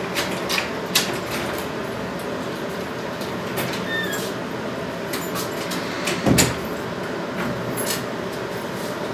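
A wooden door being opened and then shut with a thud a little past the middle, with scattered clicks and knocks from the latch and handling, over steady background noise.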